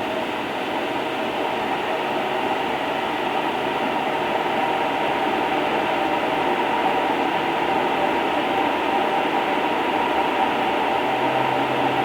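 Steady vehicle running noise, an even rumble that grows slightly louder, with a few faint steady tones in it.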